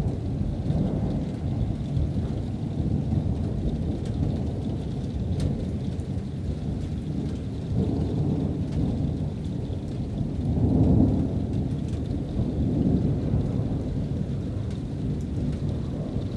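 Distant thunder rumbling on and on in long rolls, swelling loudest about eleven seconds in.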